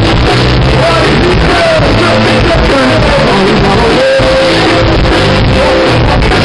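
Live band playing loudly, with a woman singing into a microphone in long, gliding notes over electric guitar and the rest of the band; the recording quality is poor.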